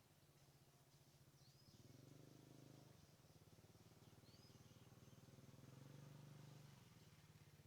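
Near silence: faint outdoor ambience with a low steady hum that swells and fades, and two faint bird chirps, about one and a half and four seconds in.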